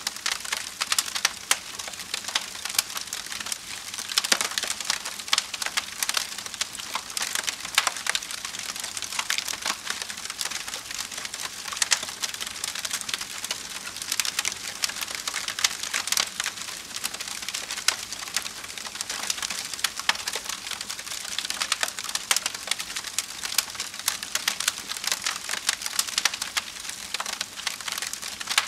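Campfire burning wood, crackling steadily with many fast small snaps and louder pops at irregular intervals.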